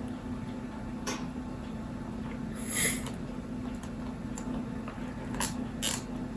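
Plastic cable ties being fastened around battery wiring: a few light clicks and one short zip about three seconds in, over a steady low hum.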